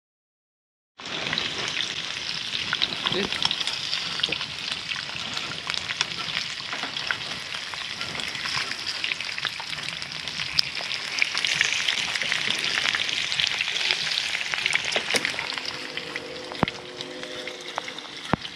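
Bacon sizzling in a skillet on a wood-stove top, starting about a second in, with scattered small clicks as the strips are turned with chopsticks.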